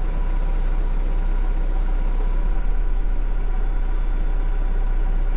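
Yanmar YT359 tractor's 59-horsepower diesel engine running steadily, heard from inside the cab, as the front loader arms are lowered.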